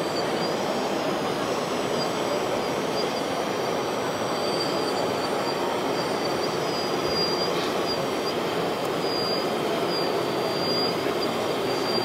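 Steady hall noise with a thin, high whine that wavers slightly in pitch, from radio-controlled scale trucks crawling slowly along a model track.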